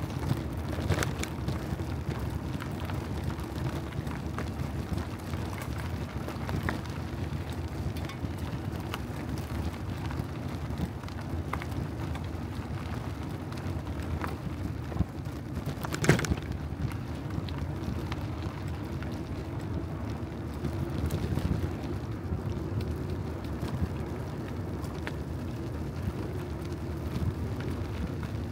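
Bicycle being ridden: a steady low rumble of tyres on the road, with scattered clicks and rattles and one sharp knock about sixteen seconds in.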